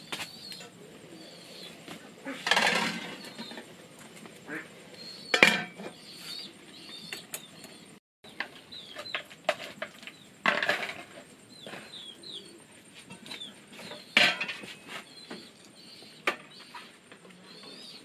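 Chickens peeping and calling over and over, with three short rustling bursts of flapping wings and a sharp clink about five seconds in.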